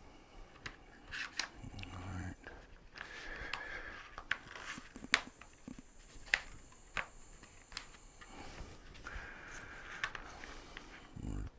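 Scattered light clicks, taps and scrapes of a broken thin plastic scooter under-tray being handled and its pieces pressed back together, with a short low knock near the end.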